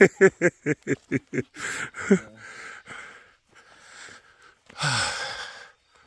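A person laughing in a quick run of about nine short 'ha' pulses, followed by breathy exhales and a long, falling, sigh-like breath near the end.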